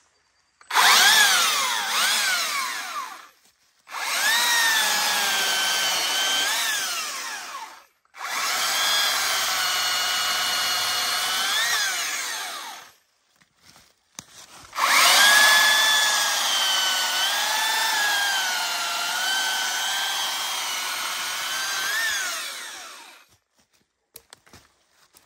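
Stihl MSA 300 battery chainsaw on its highest power setting cutting dry wood: the electric motor and chain whine in four runs with short silences between, the last and longest filling most of the second half. Within each run the pitch dips and wavers, then rises sharply just before the motor stops.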